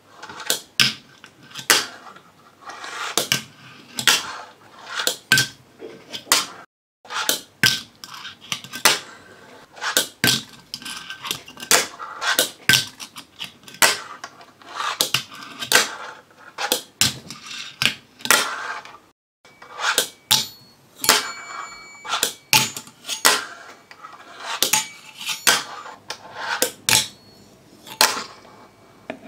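Fingerboard being ridden by hand on a glass table: small plastic wheels rolling, then sharp clacks as the tiny deck pops and lands, with truck grinds on a ledge and a metal rail. The clacks come about once a second, and there are two brief gaps of silence.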